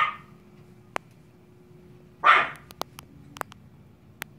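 Yorkshire terrier puppy barking: one sharp bark right at the start and another about two seconds later, with a few light clicks in between. It is alarm barking at a vacuum cleaner.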